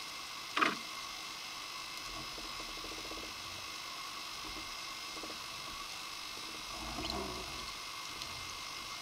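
Underwater ambience through a camera: steady hiss with a faint constant whine. One sharp falling chirp comes about half a second in, a brief rapid buzzing around two to three seconds in, and a soft low rumble near the seven-second mark.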